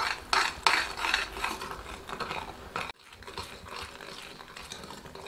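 Steel ladle scraping and knocking against a stainless steel pan as ginger paste is stirred into boiling sugar syrup, in quick repeated strokes. The sound drops out suddenly about three seconds in and comes back softer.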